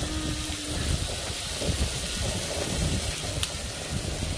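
Wind buffeting the microphone over a steady hiss of pork belly and king oyster mushrooms starting to sizzle in a grill pan on a portable gas stove. A single sharp click comes about three and a half seconds in.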